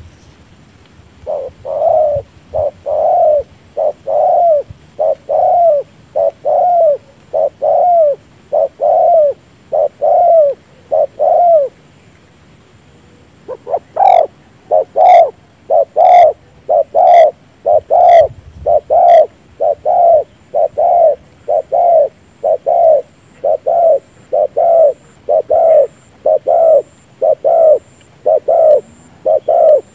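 Spotted dove bow-cooing: a rapid, regular series of short low coos, about one and a half a second. The series breaks off for about two seconds near the middle and then resumes.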